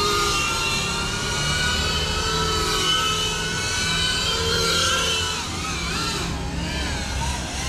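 GEPRC CineLog 35 cinewhoop quadcopter's motors and propellers whining, several close tones rising and falling together with the throttle; near the end the pitch wavers quickly up and down.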